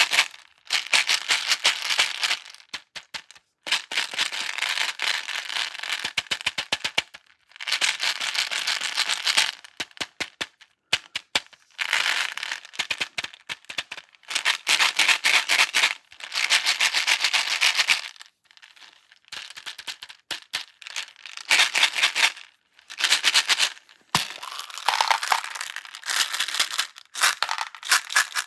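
Slime mixed with hard candies being cut and worked, giving bursts of dense crackling and clicking one to two seconds long, separated by short silences.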